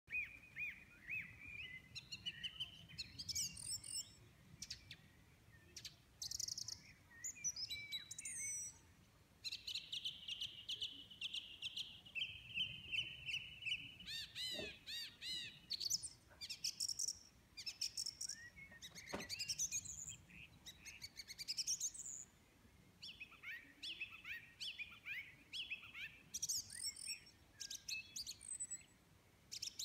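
A small songbird singing a long, varied song of whistles, rising and falling glides, fast trills and clicks, with short pauses between phrases.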